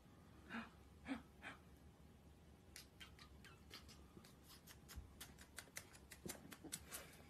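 Faint wet clicks and smacks of a dachshund puppy licking a woman's face while she kisses it, coming thick and fast from about three seconds in. Three soft breaths come before them.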